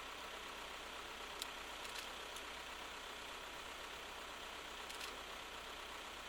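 Heavy construction machinery engine running steadily at idle, with a constant low hum. A few brief sharp clicks come about a second and a half in, around two seconds, and again about five seconds in.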